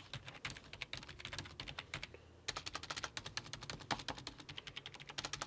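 Fast typing on a traditional non-mechanical office keyboard: a quick run of soft, dull key clicks with a short pause about two seconds in.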